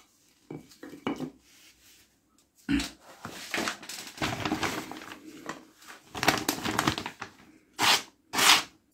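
A few knocks of handling, then a paper leaflet rustling and crinkling in the hands, with short slicing strokes of a sharp knife blade cutting through it near the end: a paper-cutting test of a freshly stropped edge.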